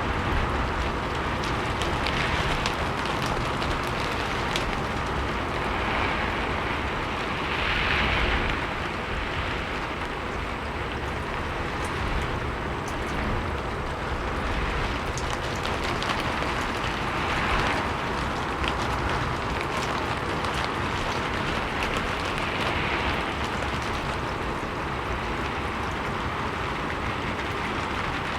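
Steady rain falling on a roof, a dense hiss of drops with scattered sharper drip ticks, swelling slightly every few seconds.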